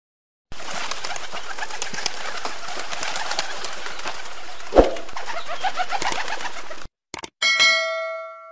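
Many pigeons cooing and calling together in a dense, busy chatter, with one thump about halfway through. The chatter cuts off suddenly, followed by two quick clicks and a bell chime that rings out and fades.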